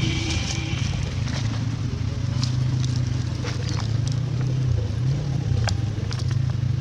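A motor running with a steady low hum, its pitch wavering briefly about five seconds in, over scattered light clicks and taps.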